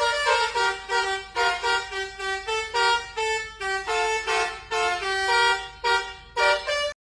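Telolet multi-tone bus air horn playing a quick tune of short pitched toots, about three notes a second. It cuts off abruptly near the end.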